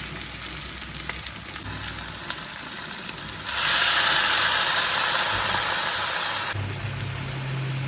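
Pork frying in a pan, sizzling with small crackles. About three and a half seconds in, the hiss becomes much louder for about three seconds, then drops back to a quieter sizzle over a low steady hum.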